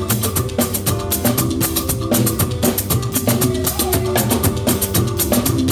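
Church band playing an instrumental passage between sung lines: drums and shakers keep a quick, steady beat under held pitched instrument notes.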